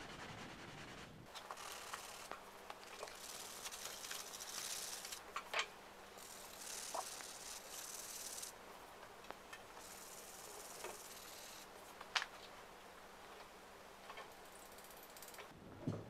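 Worn sanding sponge scrubbing back and forth on the painted steel of a John Deere X300 mower deck, sanding off a red paint scuff: a faint scratchy hiss in several stretches, with a few light clicks.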